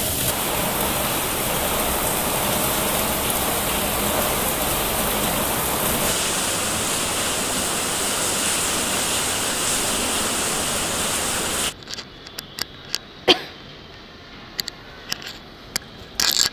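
Rain pouring down in a steady, dense hiss that cuts off abruptly about 12 seconds in, leaving quiet with a few scattered clicks and one sharp knock.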